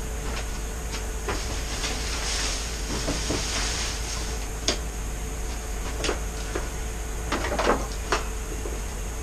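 Scattered light clicks and knocks, a cluster of them near the end, with a soft hiss from about two to four seconds in, over a steady background hum.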